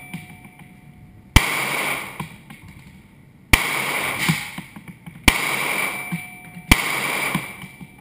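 Four handgun shots, spaced about one and a half to two seconds apart, each a sharp crack followed by about a second of echo off the concrete of an indoor range.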